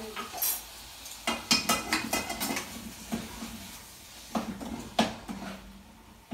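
Metal cooking pots, lids and spoons clinking and knocking on a gas cooker in irregular knocks. A quick run of clinks comes about two seconds in, and further single knocks follow, the sharpest about five seconds in.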